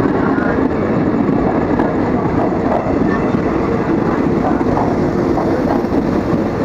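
KRL Commuter Line electric train running past a station platform: a steady, loud noise of wheels and carriages on the rails.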